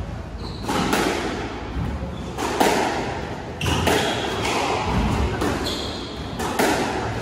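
Squash rally: the rubber ball is struck by racquets and smacks off the court walls, a sharp echoing impact about every second or so, with short high squeaks from players' shoes on the wooden court floor.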